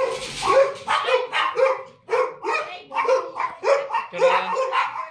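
A dog barking repeatedly in a quick, even string, about two barks a second.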